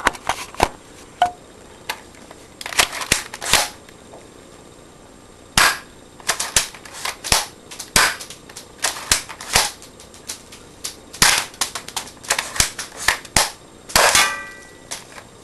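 Sharp plastic clacks and snaps from a cheap airsoft pump-action shotgun being worked, coming irregularly and often in quick clusters of two to four.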